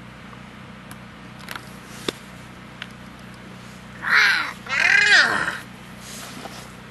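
Two loud, high squeals from a young child, one about four seconds in and a longer one just after, each pitch arching up and down.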